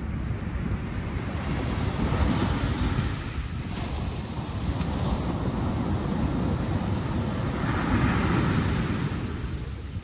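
Small sea waves breaking and washing up a shingle beach. The surf swells twice, about two seconds in and again near eight seconds, over a steady low rumble of wind on the microphone.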